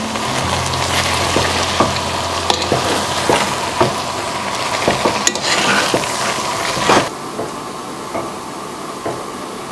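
Food sizzling in a pot or pan while being stirred, with scattered clicks of the utensil against the pan. The sizzling cuts off fairly suddenly about seven seconds in, and a quieter hiss remains.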